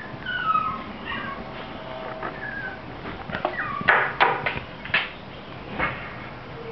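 Dog whining in high, falling whimpers, then a few short sharp yips in the middle.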